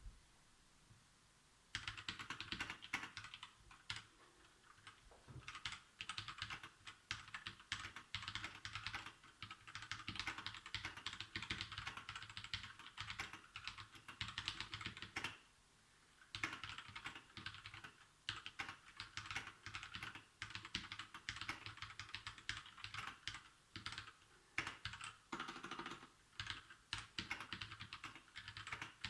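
Royal Kludge RK61 mechanical keyboard being typed on in fast, continuous runs of keystroke clicks, starting about two seconds in, with a short pause about halfway through.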